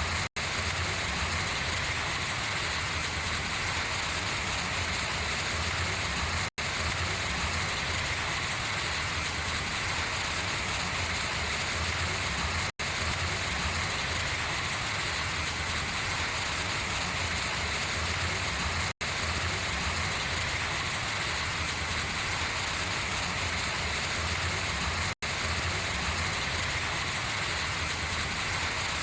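Steady rain falling on large leaves and running off them, with a split-second dropout about every six seconds.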